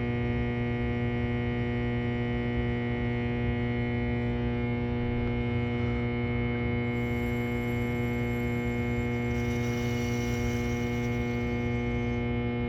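Steady electrical buzz from equipment in a utility closet: a low mains hum with many even overtones that holds unchanged, with a faint high hiss for a few seconds past the middle.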